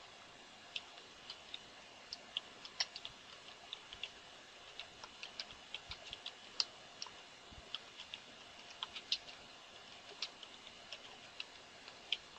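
Computer keyboard keystrokes clicking irregularly, about three a second, over a faint steady hiss.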